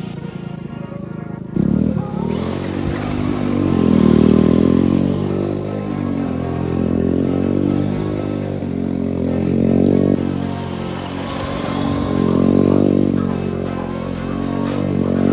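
RC car motor revving up and down in repeated swells, its pitch rising and falling about every two to three seconds.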